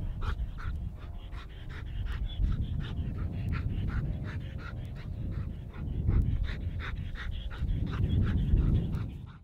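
Dog panting quickly and rhythmically, about three to four breaths a second, over a low rumble that swells twice in the second half.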